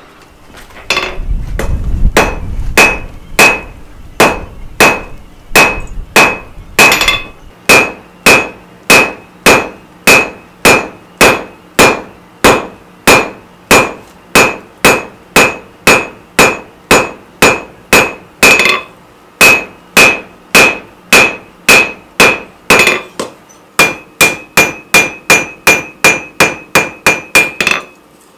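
A rounding hammer strikes steel on an anvil in a steady rhythm of about two blows a second, each blow leaving a bright ringing note. After a short pause near the end, quicker blows come at about three a second.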